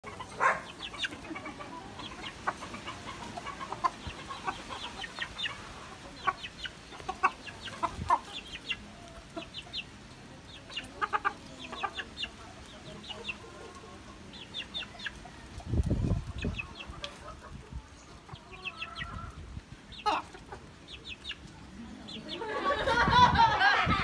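A hen and a rooster clucking softly while pecking bird seed off bare dirt, with many short clicking pecks in quick clusters. A louder, wavering call builds near the end.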